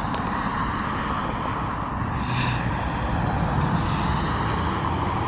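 Steady road traffic noise, cars passing with a low rumble, with two brief hisses about two and four seconds in.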